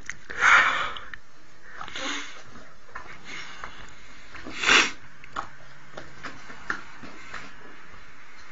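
A dog breathing hard through its nose at food close under its face: two strong nasal breaths, about half a second in and near five seconds, and a softer one at about two seconds. Light clicks of fingers and food on a plate come in between.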